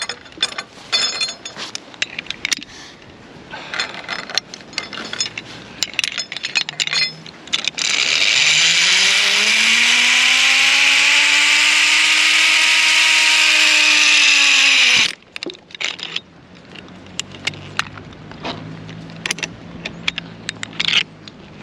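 Zipline trolley pulleys running down a steel cable: a loud hiss with a whine that rises in pitch as the rider gathers speed, levels off and dips slightly, then stops abruptly on arrival at the platform after about seven seconds. Before the ride and after it, metal clicks and rattles of the trolley and carabiners being handled on the cable.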